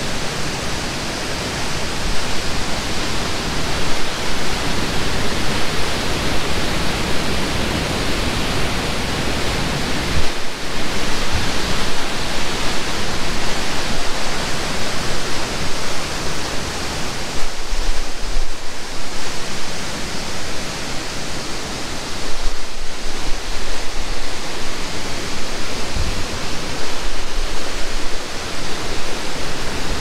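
Waterfall and whitewater creek rushing: a loud, steady roar of falling and tumbling water.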